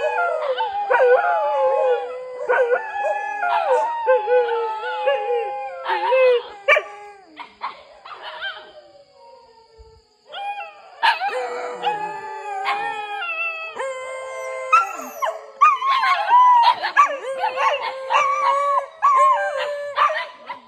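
Several dogs howling together: long, wavering howls at different pitches overlapping one another, broken by short yelps and barks. The howling dies away about eight to ten seconds in, then starts up again.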